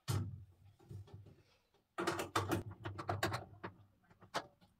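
Hand screwdriver working a screw into the metal frame of a glass cabinet: a knock at the start, then from about halfway a quick, irregular run of small clicks and taps of metal on metal.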